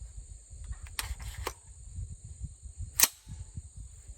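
AR-15 being readied to fire: two light metallic clicks, then about three seconds in one sharp, loud clack, like a magazine seating and the bolt slamming home. A low rumble of wind on the microphone underneath.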